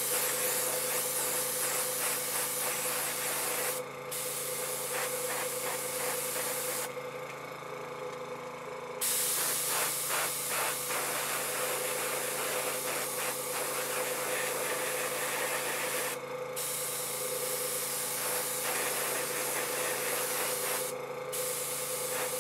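Paasche double-action airbrush spraying a light coat of weathering paint in a steady hiss. The hiss cuts off briefly a few times as the trigger is let go, once for about two seconds, while a steady low hum runs underneath.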